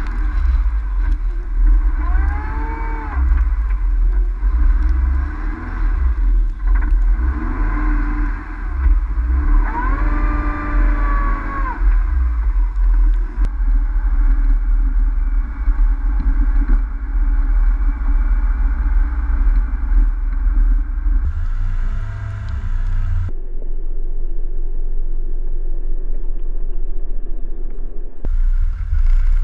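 Car engines and traffic on snowy roads under a heavy low rumble of wind buffeting the microphone. Twice, about two seconds in and again about ten seconds in, a car engine revs up and falls back.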